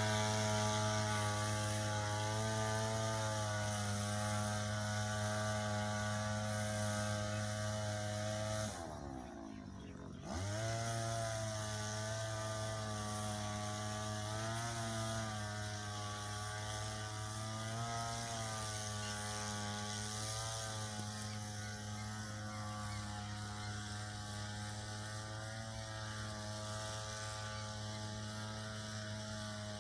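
Engine of a crop-spraying machine running steadily, its pitch wavering slightly under the load of the spray pump. About nine seconds in it drops in speed and level for a second or two, then picks back up.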